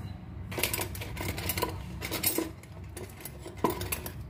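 Metal spoon stirring dry detergent powder and turmeric in a stainless steel tumbler: rapid, repeated scraping and clinking of metal on metal, starting about half a second in.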